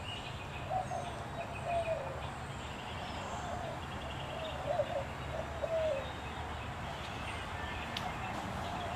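Birds calling: a low call repeated over several seconds and fainter high chirps, over a steady low hum.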